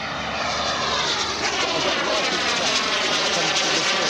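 Gas turbine of a large 1/3.5-scale BAE Hawk 100 radio-controlled model jet flying past. It makes a steady rushing jet noise that grows louder over the first second and then holds.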